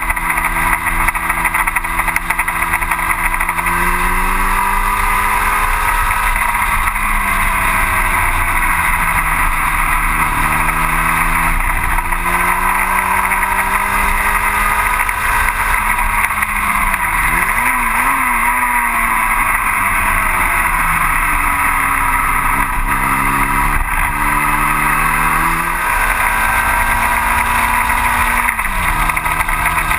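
Onboard sound of a 1960 Cooper T-52 Formula Junior's engine at racing speed, its pitch climbing and dropping again and again as it pulls through the gears, with brief jagged blips near the middle as it slows. A steady rush of wind runs underneath.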